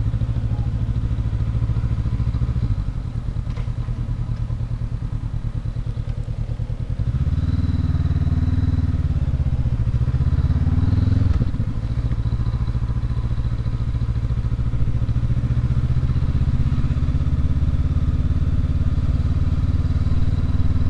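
Honda CB500X's 471 cc parallel-twin engine running as the motorcycle rides at low city speed. It drops back about three seconds in, then gets louder from about seven seconds in with its pitch rising and dipping, and settles to a steady note for the rest.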